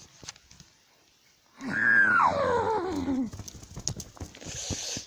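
A child's voice gives one long wavering wail that slides from high to low over about a second and a half, with rustling and clicks from handled plush toys and a breathy hiss near the end.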